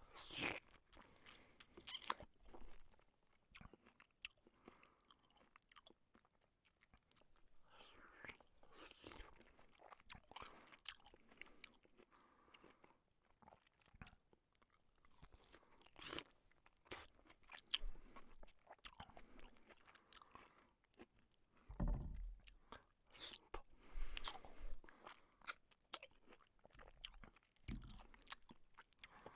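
A person eating: irregular crunching bites and chewing, with louder bites every second or two.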